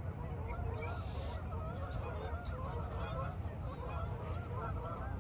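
A flock of geese honking, many short overlapping calls in a steady chorus, over a constant low rumble.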